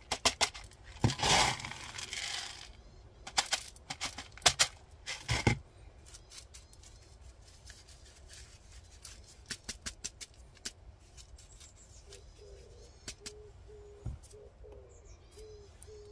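Small-grain akadama top-dressing being poured and worked onto the surface of a potted orchid: hard granules rattling and clicking against each other and the pot, with a rush of grit about a second in and scattered clicks that thin out toward the end.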